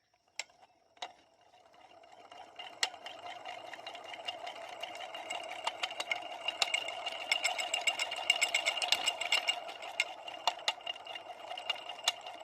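Yamaha Blaster two-stroke crankshaft turned by hand, its worn bearings running with a steady grinding rattle full of small clicks, after a few single clicks at the start. It sounds like rocks in a tin can: the bearings are shot, with up-and-down and side-to-side play.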